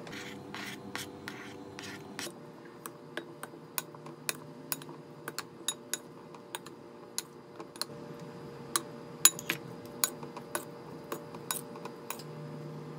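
Wooden spoon knocking and scraping against a glass mixing bowl as pasta salad is tossed: scraping at first, then irregular sharp taps, with the loudest knock about nine seconds in.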